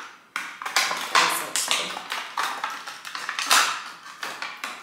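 Irregular rustling and clattering of boxes, packaging and objects being handled and rummaged through, several short noises a second, fading out near the end.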